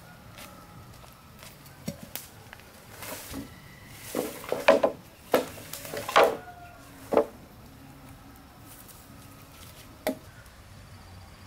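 Green bamboo poles knocking together as they are handled: a quick run of sharp knocks in the middle, then one knock of a machete blade against a bamboo pole near the end.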